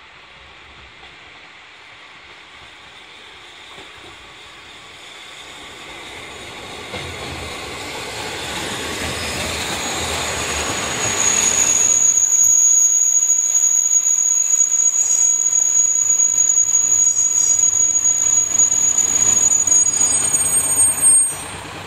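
Three-car JR Shikoku diesel railcar train (KiHa 54 and KiHa 32 railcars) approaching along the platform and running close past, its rumble growing steadily louder. About halfway through, a high steady metallic squeal from the running gear joins in and holds.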